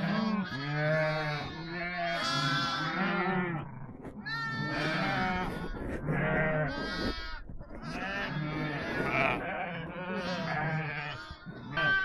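A mixed herd of goats and sheep bleating, many calls overlapping one after another without a break.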